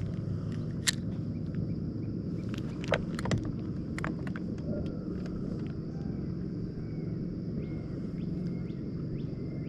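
A boat's motor runs with a steady low hum, and a few sharp clicks come in the first half.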